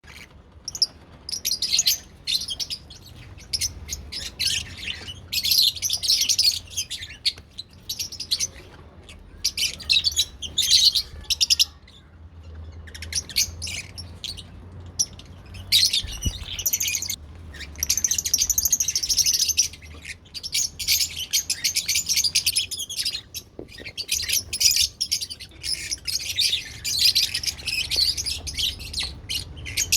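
Pet lovebirds chattering and chirping in rapid, high-pitched bursts that start and stop throughout, over a faint steady low hum.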